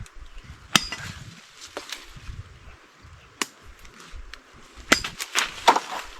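Cutlass (machete) chopping into vines and brush: single sharp chops spaced a second or more apart, then a quick flurry of several strikes near the end.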